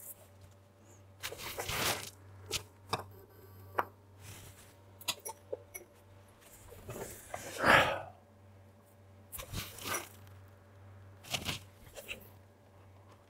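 A man's breathing and throat noises: several short breaths or sighs, the loudest about two-thirds of the way through. A few sharp clicks come in between, over a faint steady hum.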